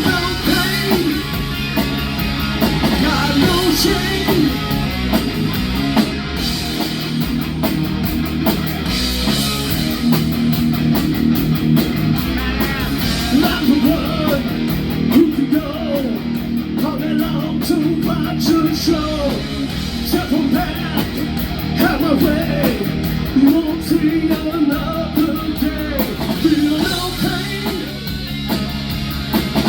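Live rock band playing a song, with electric guitar and singing.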